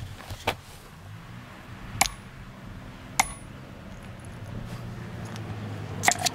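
A 4 lb sledgehammer striking a Thrunite T10S aluminium flashlight, with sharp metallic clinks. There is a faint blow first, then two hard ones about a second apart, then a quick pair near the end. The blows are hard enough to dent the flashlight's case.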